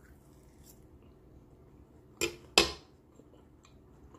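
A metal fork set down on a wooden cutting board: two sharp knocks close together about two seconds in, the second the louder.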